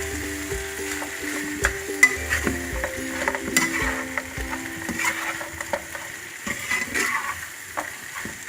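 Fried chicken pieces being stirred into a pan of sizzling sauce, with the spatula clicking and scraping against the pan many times. Soft background music with held notes plays through the first half.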